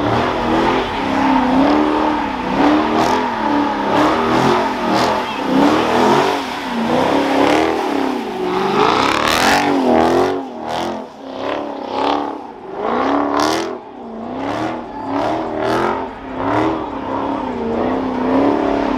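A V8 engine revving hard during a burnout, its pitch swinging up and down over and over as the throttle is worked, with short sharp bursts over it in the second half.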